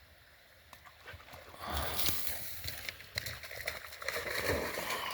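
A dog splashing through shallow pond water after a thrown ball, starting about a second and a half in and carrying on to the end in uneven sloshing.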